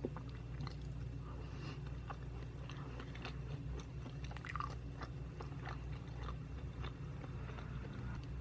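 Close-miked chewing of a mouthful of butter jangjorim bibimbap, rice with soy-braised beef: many small, irregular wet mouth clicks and smacks over a steady low hum.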